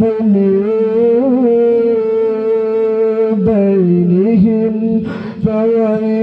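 A male qari reciting the Quran in a long, melodic tilawat line into a microphone. He holds drawn-out notes with wavering ornaments in pitch, with two short breaks.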